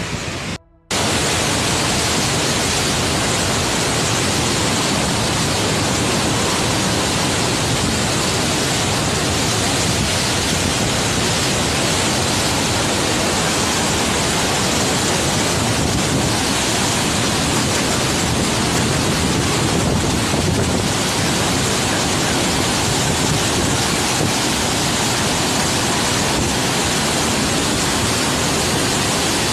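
Typhoon wind and driving rain: a loud, steady rush of noise that briefly drops out under a second in.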